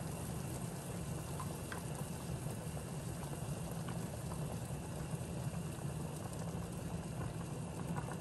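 Creamy Alfredo sauce of half-and-half and whole milk simmering in a pan on the stove: a steady bubbling with a few faint pops, over a low steady hum.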